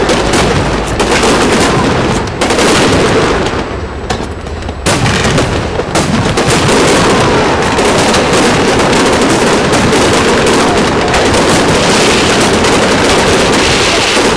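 Aerial firework shells bursting in a dense, rapid barrage of bangs and crackles, with a short lull about four seconds in.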